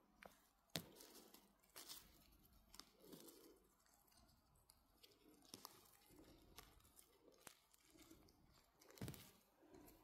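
Faint footsteps rustling and crunching through forest-floor litter, with a few sharp clicks, the clearest just under a second in and near the end.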